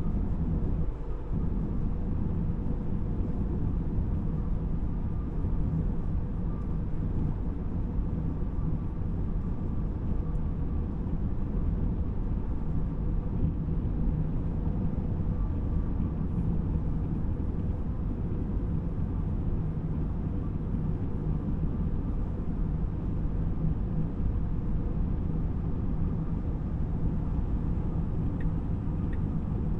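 Steady low rumble of road and tyre noise from a moving Tesla electric car, with no engine note.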